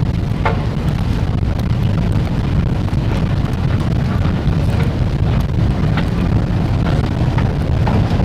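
Moving walkway running with a steady low rumble, with faint light clicks now and then.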